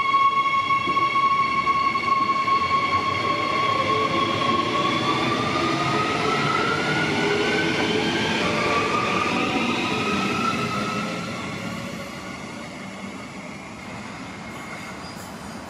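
Queensland Rail electric suburban train pulling away, its traction motors giving a steady whine over the wheel rumble, then rising in pitch twice as it accelerates. The sound fades away over the last few seconds.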